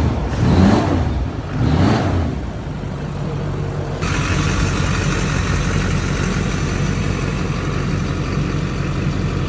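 The 6.6-litre LLY Duramax turbo-diesel V8 of a 2005 Chevrolet Silverado 2500HD idling steadily. A couple of loud swishes come in the first two seconds. About four seconds in, a brighter hiss and a high whine suddenly join the idle as the sound is picked up from low under the truck.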